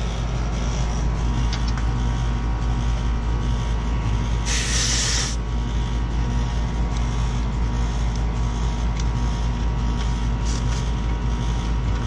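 Air-conditioning condenser unit running with a steady mechanical hum. About four and a half seconds in, a sharp hiss of R410A refrigerant lasts under a second as a gauge hose is fitted to a service port, and brief fainter hisses follow near the end.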